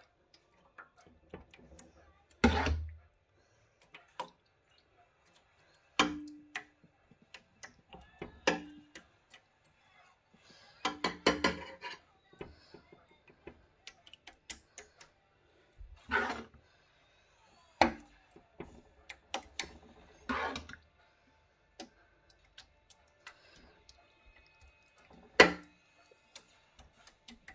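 Metal serving spoon scraping and knocking against a metal roasting tray as cooked minced-meat sauce is spread in it: scattered sharp clinks every few seconds, a quick run of taps about 11 seconds in, some strikes leaving a short ring from the tray.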